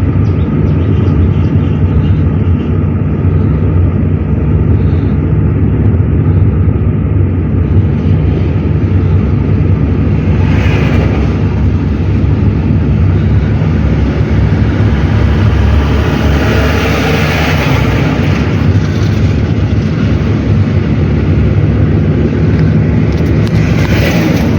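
Car on the move: steady engine drone and road noise, with low rumble, unchanging throughout.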